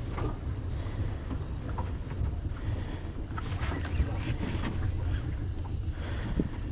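A fishing boat's engine running with a steady low drone, with a few short knocks and faint voices over it.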